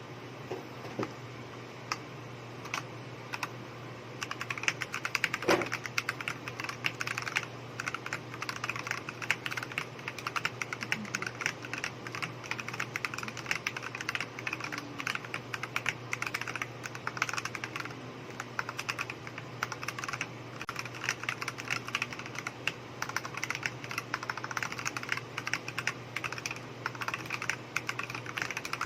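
Typing on a TOM680 mechanical keyboard with stock, unlubed Akko CS Sponge tactile switches and Kon Momo clone keycaps. There are a few separate keystrokes at first, then steady, fast typing from about four seconds in.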